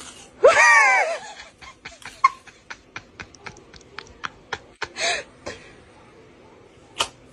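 A short, loud, high cry that rises and falls in pitch, then a quick run of sharp clicks, about five a second for some four seconds, with a brief breathy burst among them and one more click near the end.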